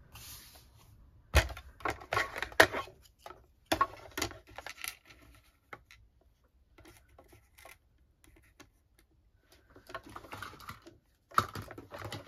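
Clicks and clatters of thin metal cutting dies, plastic cutting plates and card being set down and arranged on a desk to make up a die-cutting sandwich. There are two spells of handling with a quieter lull between them.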